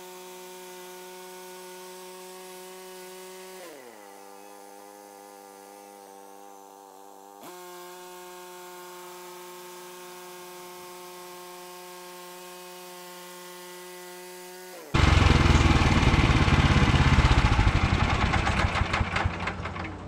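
Woodland Mills HM126 portable band sawmill's 14 hp engine running steadily. It drops to a lower speed about four seconds in and comes back up a few seconds later. About fifteen seconds in, the band blade starts cutting through a cedar log, much louder and rough, easing off near the end.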